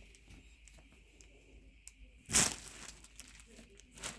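Crinkly rustling of handled packaging and cloth during an unboxing: one sharp rustle about two seconds in and a short one near the end, with quiet handling between.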